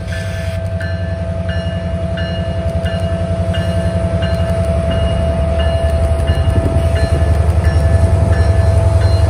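Two EMD GP20C-ECO diesel-electric locomotives with eight-cylinder EMD 710 engines approaching under power, their low engine rumble growing steadily louder, with a bell ringing about twice a second over a steady whine.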